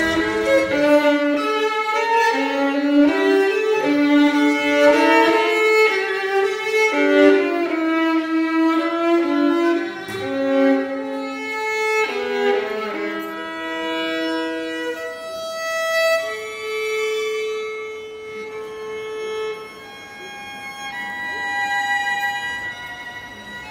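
Solo violin playing, quick changing notes with some double stops for the first half, then longer held notes that grow quieter near the end.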